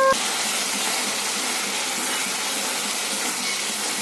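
Paneer cubes in mustard paste sizzling steadily in hot oil in a kadai.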